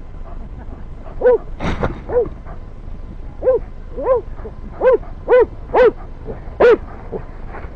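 Cockapoo barking: a string of about nine short barks, irregularly spaced, each rising and falling quickly in pitch.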